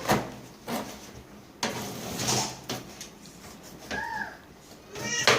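Knife cutting through pineapple skin, with several sharp knocks of the blade on the board spaced irregularly. A short pitched call that rises and falls comes about four seconds in.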